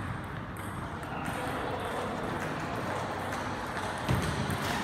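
Table tennis ball clicking off the bats and table in short, sharp taps, with one louder knock about four seconds in.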